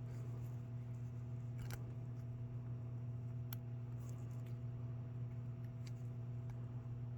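A few small sharp clicks of plastic model parts being handled and pushed into place, over a steady low electrical hum.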